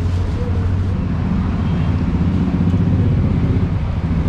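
Low rumble of a motor vehicle engine running, louder in the middle.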